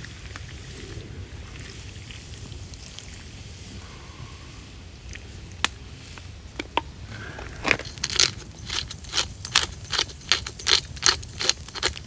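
Pork sizzling in a metal pan over a wood campfire as liquid is poured from a can onto the hot meat. From about eight seconds in come loud, sharp pops and spits, two or three a second, as the flames flare around the pan.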